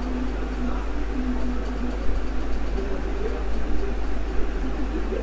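Steady low hum and hiss of background noise, like a running fan or the recording's own noise floor, with a faint tone pulsing on and off during the first two seconds.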